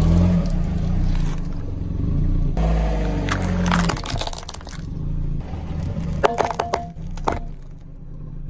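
Car engine running low while a tyre rolls over and crushes objects, with crackling and crunching. A few sharp snaps come about six to seven seconds in.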